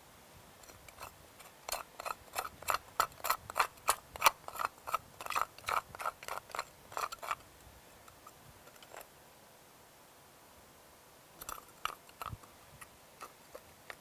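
Metal hand tools digging a small hole in compacted gravelly soil: a run of short scrapes and clicks, about three a second, then a pause and a few more near the end. This is the test hole being excavated for a sand-replacement in-situ density test.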